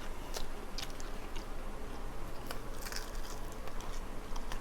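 Close-up eating sounds: a person biting and chewing crispy fried chicken, with scattered crunches and wet clicks.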